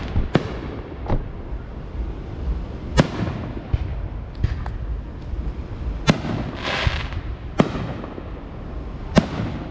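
Fireworks going off: about six sharp bangs at irregular gaps of one to three seconds, each with a short echoing tail, mixed with smaller pops and a hissing crackle near the middle.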